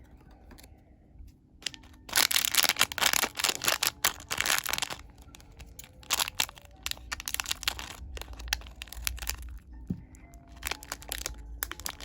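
Blind-box packaging being torn open and crinkled by hand, with a loud burst of crackling about two seconds in that lasts a few seconds, then scattered lighter crinkles and clicks.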